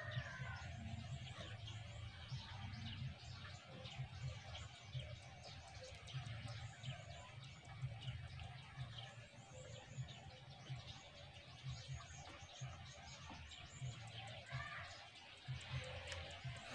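Faint birds chirping and calling in the background, many short high chirps with an occasional sliding call, over a low steady hum.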